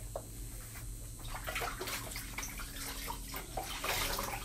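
Water running from a tap and splashing unevenly in a bathroom sink.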